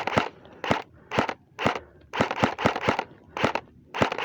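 Airsoft guns firing: single sharp shots about twice a second, with a quicker string of shots around two seconds in.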